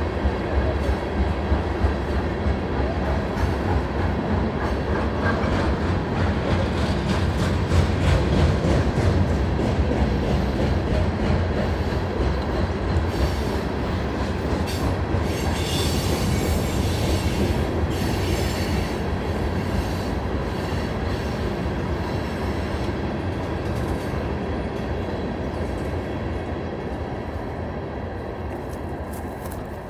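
A train rolling past close by, running steadily with rapid clicking from the wheels, then slowly fading away over the last several seconds.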